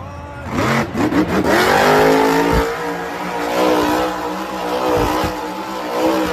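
Monster truck's supercharged V8 engine revving hard, its pitch climbing in the first second or so and then rising and falling as the throttle is worked. There are a couple of low thumps partway through.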